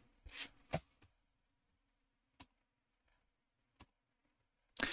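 A few faint, isolated computer mouse clicks, spaced a second or more apart, then near the end a short breathy rush of air from a person, an inhale or sigh.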